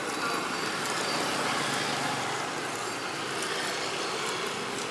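Steady roadside traffic noise, a continuous hum of passing vehicles with no single sound standing out.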